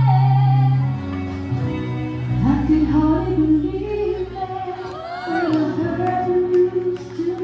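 A woman singing a slow ballad with a live band, over held low bass notes. The music gets quieter about a second in, then her voice climbs and swells again.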